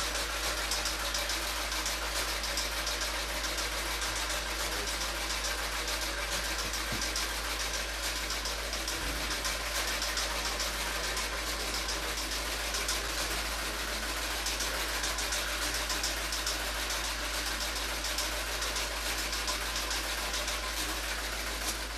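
Steady hiss with a low hum underneath, unchanging throughout, with no distinct events: the background noise of an old film soundtrack.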